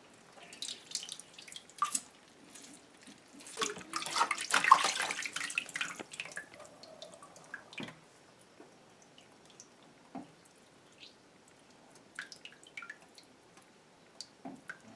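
Hands splashing and swishing water in a plastic bowl of water in a sink while washing fish fillets, busiest about four to six seconds in. Later there are scattered drips and small splashes as the fillets are handled and lifted out of the water.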